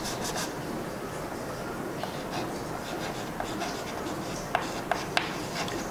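Chalk writing on a blackboard: steady scratching strokes, with a few sharp taps of the chalk against the board about four and a half to five seconds in.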